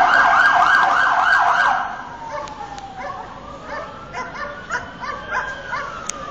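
Emergency vehicle siren: a fast yelping warble for about two seconds, then a slower wail that falls, rises and falls again. Scattered short street noises sound behind it.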